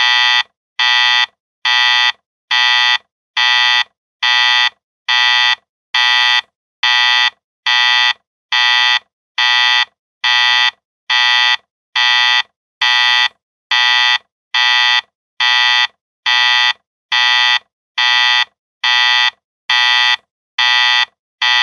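Digital alarm clock alarm beeping: a string of loud electronic beeps, a bit more than one a second, starting suddenly and keeping an even pace. It signals that a ten-minute countdown has run out.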